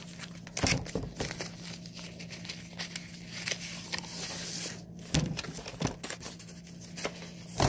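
A vinyl LP in its white paper inner sleeve being slid out of its cardboard album jacket by hand: rustling and crinkling of paper and card, with a louder stretch of rustling midway and a few sharp knocks from handling.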